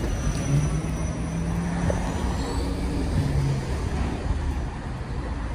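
Inside a BYD Alexander Dennis Enviro200EV battery-electric bus on the move: a steady low rumble of road and tyre noise, with a faint rising electric-motor whine about two seconds in.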